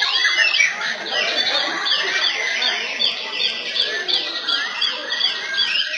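Several white-rumped shamas (murai batu) singing at once in a dense, overlapping chorus. Their short, rapid, down-slurred whistled notes repeat several times a second without a break.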